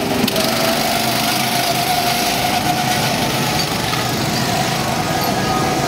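Go-kart engines running on the track, a steady whine that holds one pitch.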